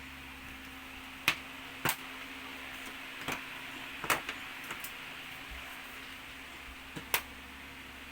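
Irregular sharp clicks and taps, a handful spread over several seconds, over a steady faint hiss and hum: plastic and metal parts of a TV being handled during disassembly.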